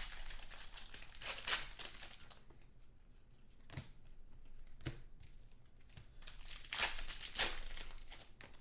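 Foil wrapper of a trading card pack being torn open and crinkled by hand. The crinkling is dense at first, then gives way to a few sharp clicks as cards are handled, and picks up again near the end.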